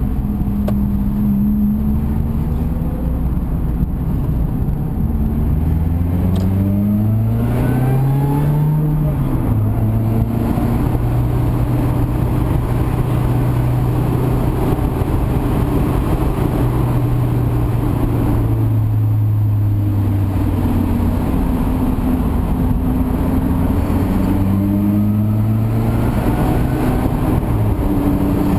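Mazda MX-5's four-cylinder engine heard from inside the cabin, revving up through the gears about six to nine seconds in and again near the end, with a drop in pitch at each gear change, and running at a steady cruise in between.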